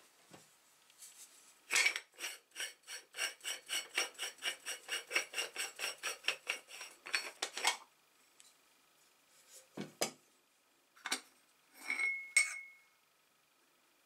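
Aluminium moka pot's upper chamber being unscrewed from its boiler: the threads grate in a rapid, even run of about five ringing clicks a second for some six seconds. Then a knock and a few light clinks of aluminium parts as the filter funnel is lifted out, the last one ringing briefly.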